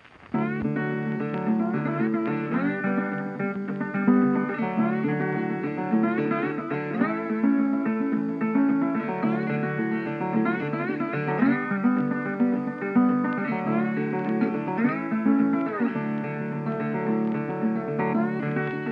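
Instrumental guitar music, with notes that slide and bend over a steady lower accompaniment; it starts just after the beginning.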